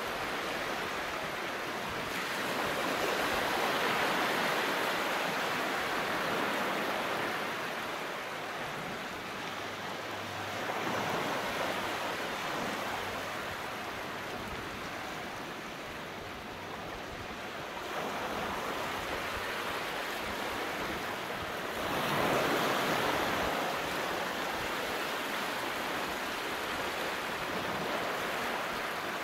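Sea surf washing on the shore, a steady rush that swells into a louder surge every several seconds.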